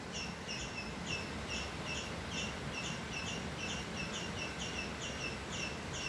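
A steady run of short high chirps, about three a second, from a small animal in the background, over a low even hiss.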